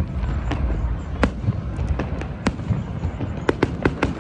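Fireworks going off: about ten sharp, irregularly spaced bangs over a continuous low rumble, with several coming in quick succession near the end.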